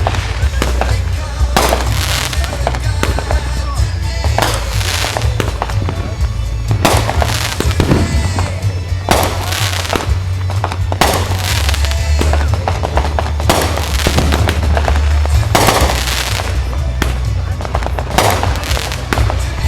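Fireworks going off one after another: many sharp bangs and crackling bursts at uneven intervals, with music playing underneath.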